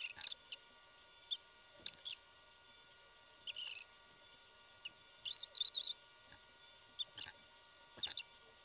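Faint, scattered high-pitched ticks and squeaks of a mascara wand and tube being handled and brushed through the lashes, about ten in all, with a small cluster partway through.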